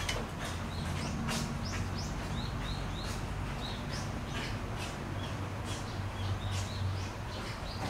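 Small birds chirping: many short high calls, several falling in pitch, scattered throughout, over a low steady hum.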